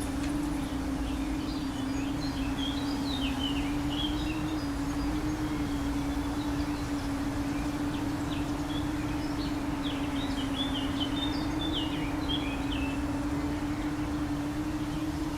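Small quadcopter drone's propellers giving a steady, nearly constant buzzing hum, with birds chirping in two short spells, once a few seconds in and again past the middle.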